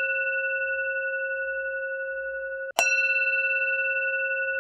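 A bell-like chime sound effect rings with a sustained, slowly fading tone. It cuts off just under three seconds in and is struck again, ringing on.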